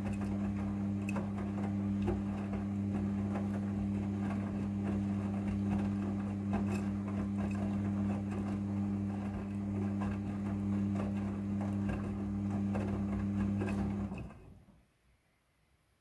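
Midea front-loading washing machine running, a steady motor hum with light rattling and clicking, winding down and stopping about two seconds before the end.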